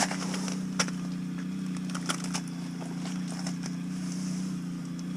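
Steady low motor hum, with a few light clicks and taps scattered over it.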